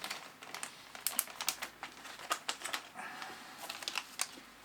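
Irregular small plastic clicks and packaging rustle as mechanical keyboard switches and kit parts are handled.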